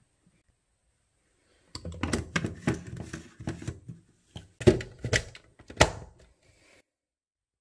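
A quick, irregular run of clicks and knocks from hard objects being handled, with three louder knocks near the end.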